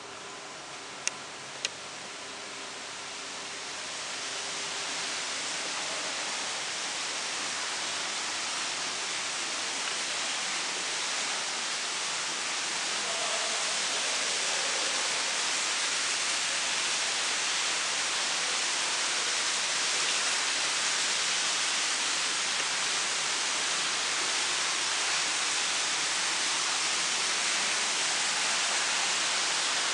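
Running water splashing into a pond, a steady rush that grows louder over the first few seconds and then holds steady. Two small clicks about a second in.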